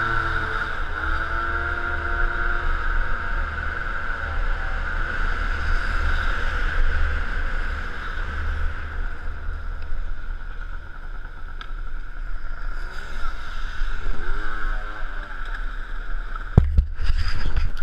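Peugeot Speedfight 2 two-stroke scooter engine running under way, with low wind rumble on a helmet-mounted camera. Its pitch falls and rises again about three-quarters of the way through as the scooter slows, and a few sharp knocks come near the end.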